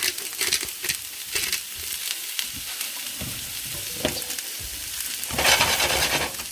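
Chopped onion and mushrooms frying in olive oil in a pan, with a steady sizzle and the clicks and scrapes of a utensil stirring them. A louder stretch of sizzling and scraping comes near the end.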